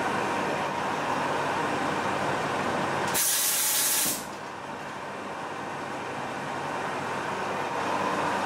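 Metal lathe running steadily while a threading bar cuts an internal 1-inch BSP thread in a cast plate. About three seconds in, a loud hiss lasts about a second; after it the running sound is quieter and slowly builds back up.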